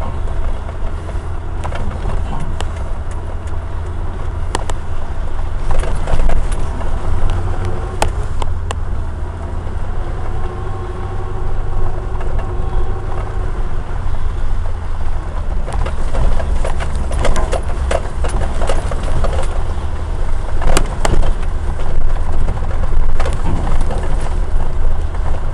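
Suzuki jeep driving slowly over a rough off-road dirt track, heard from inside the cab: a steady low engine and road rumble with frequent knocks and rattles as the body jolts over bumps. The engine note rises and falls around the middle.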